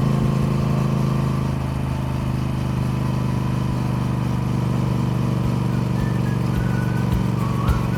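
Triumph Speed Twin's parallel-twin engine running at steady revs.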